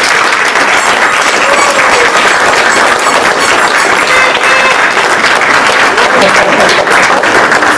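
An audience applauding loudly and steadily, with a few voices calling out in the crowd.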